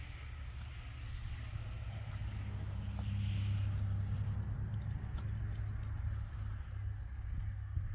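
An insect chirping in a fast, even pulse of high notes, several times a second, over a steady low hum.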